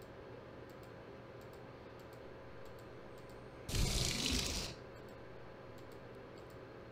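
Low steady hiss, then about four seconds in a roughly one-second gush of water running and splashing from an outdoor tap.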